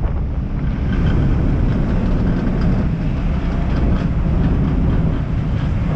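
Steady low rumble of a car ferry under way, heard on its open deck: engine and wake noise mixed with wind on the microphone.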